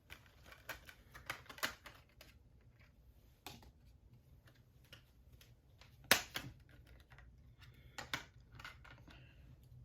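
Scattered clicks and taps from a SteelBook case and its Blu-ray discs being handled, with the sharpest click about six seconds in.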